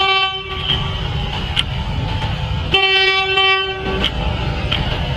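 Bathara Kresna railbus sounding its horn: one steady tone that ends about half a second in, then a second blast of a little over a second starting near the middle, over a low rumble of the railbus and street traffic.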